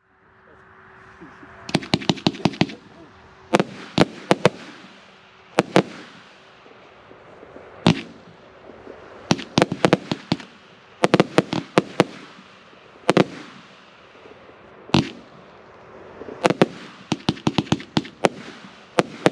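Riakeo 'Leidenschaft' 77-shot firework compound cake in 25 and 30 mm calibre firing. Sharp bangs of shells launching and bursting come in quick clusters of four to six and as single reports, every one to two seconds, each followed by a fading hiss.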